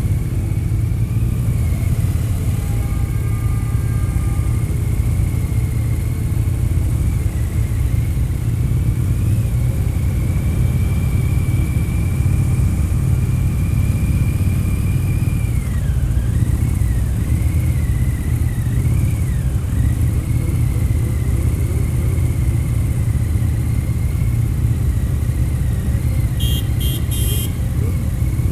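Harley-Davidson touring motorcycle's V-twin engine running steadily on the move, heard from the rider's seat with wind noise on the microphone. A short burst of clicks near the end.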